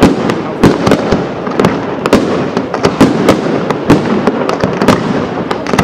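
Professional fireworks display: aerial shells and single shots firing and bursting in a fast, irregular string of sharp bangs, a few each second, over a continuous noisy din of overlapping reports.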